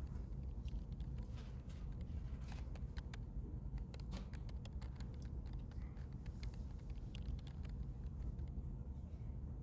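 Many light, irregular clicks and ticks, thickest in the middle, over a steady low rumble.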